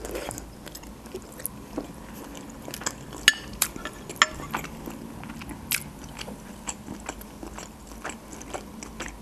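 Close-miked chewing of a mouthful of stuffed cabbage roll, with irregular wet mouth clicks and smacks scattered through it.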